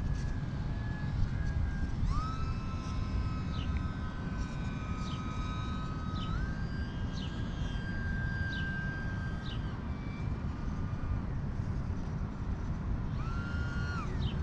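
Micro RC biplane's electric motor and propeller whining in flight, its pitch stepping up about two seconds in and again midway with throttle, then dropping about ten seconds in and rising again near the end. A steady low rumble lies beneath it.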